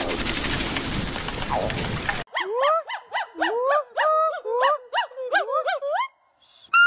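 A garden hose spraying water hisses for about two seconds, then a gibbon calls: a fast run of whooping notes, each rising then dropping, about four a second, followed after a short pause by one louder high hoot near the end.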